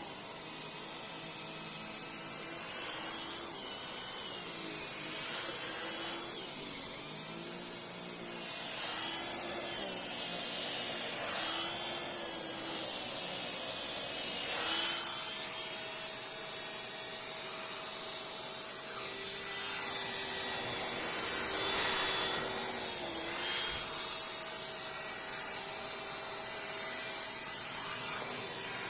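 Shark Powered LiftAway vacuum running with an air-driven Dyson turbo brush tool on its hose, the brush worked over carpeted cat-tree surfaces. A steady high motor whine runs under a spinning hum whose pitch keeps wavering up and down as the brush is pressed on and eased off, and the sound swells briefly about 22 seconds in.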